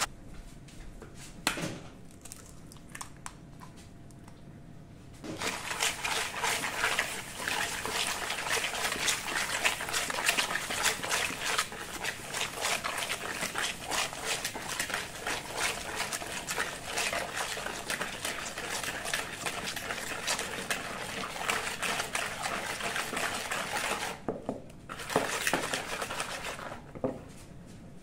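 Wire whisk beating a wet egg-and-sugar mixture in a bowl: fast, even strokes with the wires clicking and scraping against the bowl. It starts about five seconds in, pauses briefly near the end, then gives a short last burst.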